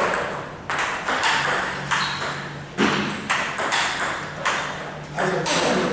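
Table tennis ball being hit back and forth in a chopping rally: sharp clicks off the bats and bounces on the table, about one every half second, echoing in a large hall.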